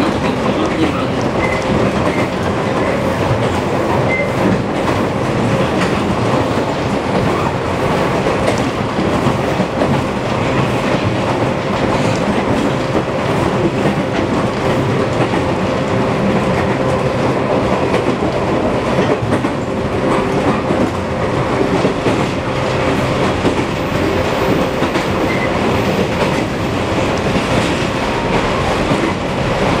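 Interior running sound of a JR Kyushu 415 series 500 subseries electric multiple unit travelling at a steady speed: wheel-and-rail noise under the car with a steady hum of even pitch from the running gear.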